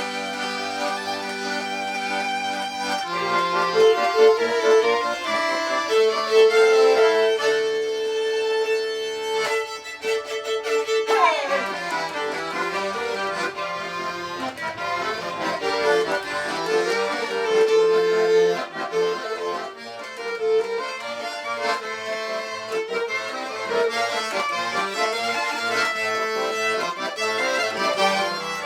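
Live acoustic music from a duo in a passage without words: a melody with long held notes over a moving accompaniment, and a quick falling slide in pitch about eleven seconds in.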